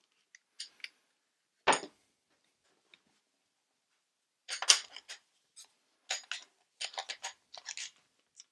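Clicks and knocks of a small Makita trim router being handled: the motor body is pulled from its base and fitted into a wooden circle-cutting jig. There is one sharp knock about two seconds in, then a cluster of clicks near the middle and a run of quick clicks and rattles near the end.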